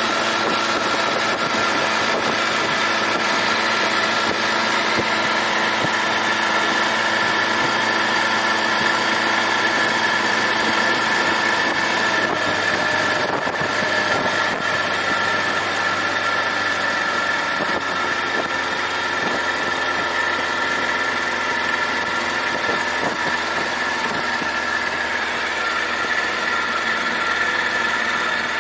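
An old tiller-steered outboard motor running steadily, pushing a small fishing boat along.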